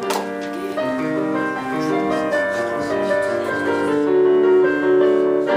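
Instrumental music with a keyboard instrument playing a stepping melody of held notes.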